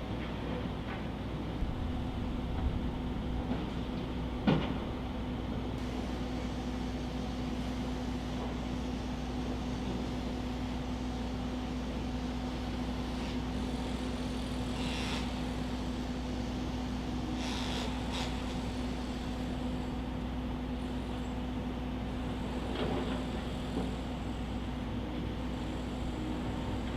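Steady outdoor background noise with a constant low hum, broken by a few brief sudden noises, the loudest about four and a half seconds in.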